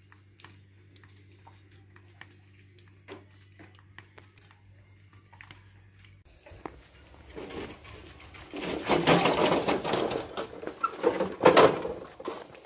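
A faint steady low hum at first; then, from about halfway, a loud rattling clatter as a metal wheelbarrow loaded with wood is pushed along a paved path, its load and frame shaking with each bump.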